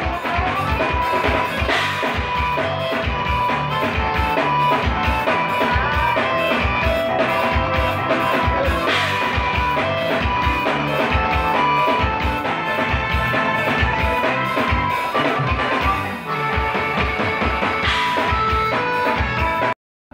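Live band music: electric guitar and sustained notes over a steady drum-kit beat, cutting off abruptly just before the end.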